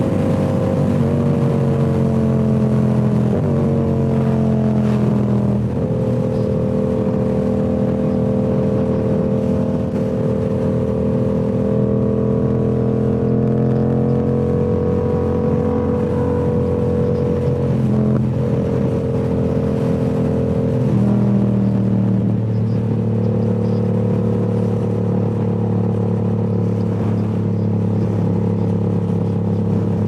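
Yamaha R7's parallel-twin engine through a Toce full-system exhaust while riding. The engine note falls in pitch over the first few seconds in three stretches, each starting a little higher again, then holds a steady cruising note, with a brief dip about 18 seconds in and a change in engine speed a few seconds later.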